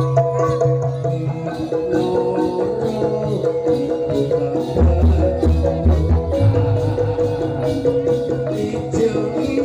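Javanese jaranan ensemble playing live: drums beat a fast, even rhythm under a held, steady melody line, with deep gong notes that change about five seconds in and again a second and a half later.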